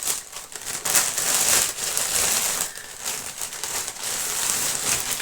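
Plastic shopping bags rustling and crinkling as groceries are handled and pulled out, in uneven surges.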